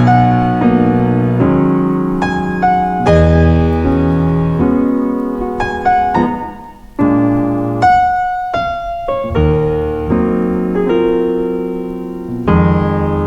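Chopped piano chords sampled from vinyl, played back on a Roland SP-404SX sampler. Each chord is struck, then cut off by the next, about one a second, with a short drop in level about halfway through.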